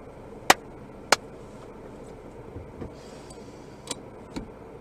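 Car turn-signal indicator clicking inside the cabin at a steady pace of a little under two clicks a second, stopping about a second in; two fainter ticks follow near the end over a low steady cabin hum.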